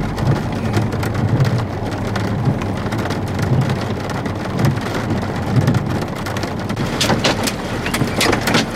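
Heavy rain striking a vehicle during a severe thunderstorm: a dense, steady hiss over a low rumble. In the last two seconds a quick run of sharp taps sounds on top of it.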